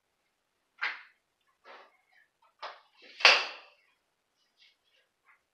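Knocks and clatter of things being handled and moved, with one loud thump a little over three seconds in.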